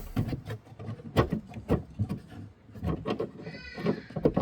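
A screw being undone from a car's tail light housing: a run of irregular clicks and scrapes, with a brief squeak about three and a half seconds in.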